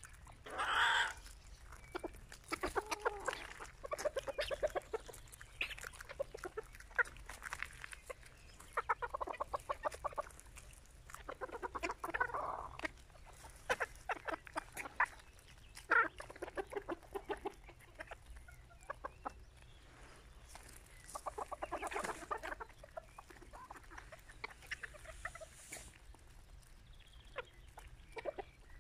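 A flock of Serama bantam chickens clucking, in repeated bursts of quick, chattering notes, with one louder call about a second in.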